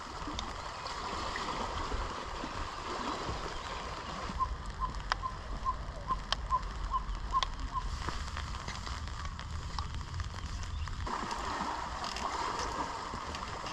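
Small lake waves lapping and washing against shoreline rocks: a steady wash of water noise. Through the middle, a run of about ten short, evenly spaced high notes sounds at about three a second.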